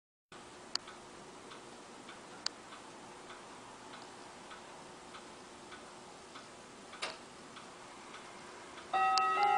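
German Jawaco chime wall clock ticking steadily with its pendulum, about one tick every 0.8 seconds. About nine seconds in, its chime starts, with several ringing tones sounding at once, much louder than the ticking.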